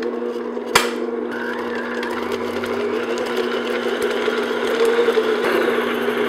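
Stand mixer motor running steadily, its paddle attachment beating butter in a glass bowl until creamy. There is one sharp click about a second in.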